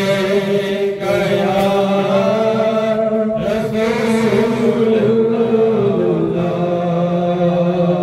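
Male voices chanting an unaccompanied Urdu devotional hymn through microphones, drawing out long, slowly gliding held notes.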